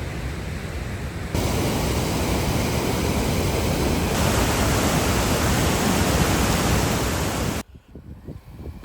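Rushing water, a steady full roar without any tone or rhythm, louder from about a second and a half in. It cuts off abruptly near the end, leaving quieter wind rumble on the microphone.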